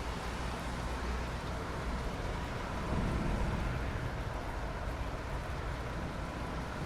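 Steady rain falling, an even hiss with a low rumble underneath that swells briefly about three seconds in.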